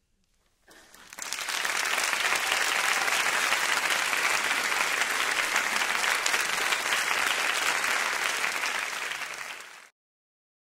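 Audience applauding: the clapping starts about a second in, quickly rises to a steady, dense level, and is cut off abruptly near the end.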